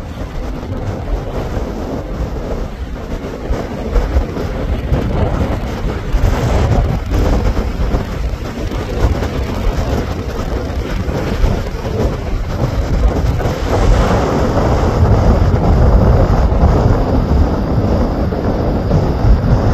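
Strong wind buffeting the microphone: a loud, gusty rumble that grows stronger in the second half.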